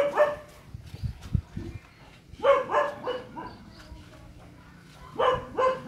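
Short, quick animal calls in quick runs: a brief one at the start, a run of about a second in the middle, and another near the end.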